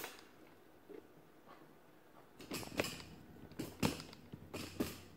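Light handling noises: a few sharp clicks and knocks, mostly in pairs in the second half, with soft rustling between them.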